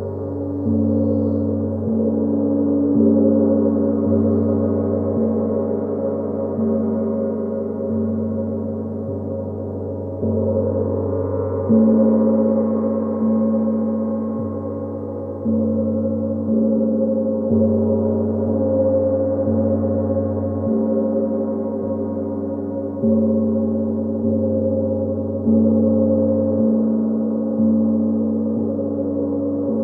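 Gong played continuously with soft mallet strokes, about one every second or so. Its deep ringing tones overlap into an unbroken wash of sound.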